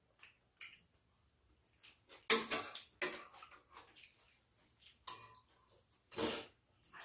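Metal spoons and chopsticks tapping and scraping against ceramic bowls in scattered light clinks, with two louder, longer noisy sounds, one about two and a half seconds in and one near the end.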